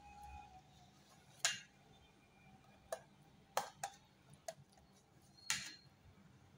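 Knife blade tapping against the steel tray as it cuts through steamed egg pudding: about six sharp clicks at uneven intervals.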